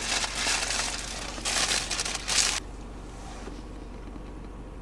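Food packaging crinkling and rustling as a treat is handled, in uneven bursts, stopping suddenly about two and a half seconds in.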